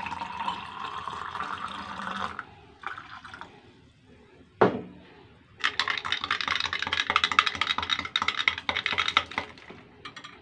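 Milk being poured into a glass mug of coffee, a steady splashing pour whose pitch rises slightly as the mug fills, stopping about two seconds in. A single knock follows midway, then a plastic straw stirs the drink quickly, clicking rapidly against the glass for about four seconds.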